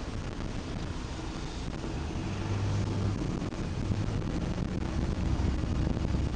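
Car cabin noise while driving in city traffic: a steady low rumble of the engine and tyres heard from inside the car, with a low hum that swells a few times.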